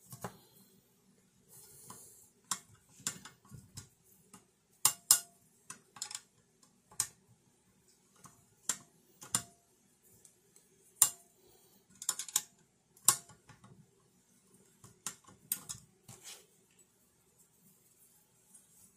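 A screwdriver and metal bracket parts clicking and clinking as a bolt is worked loose on a metal monitor-arm tilt bracket: irregular sharp clicks, a few with a short metallic ring.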